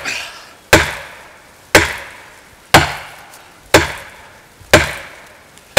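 Fiskars 28-inch chopping axe driven into a hardwood tree trunk in deliberate overstrikes, the composite handle just behind the head taking the hit: about five sharp cracks, one a second, each with a short ringing tail.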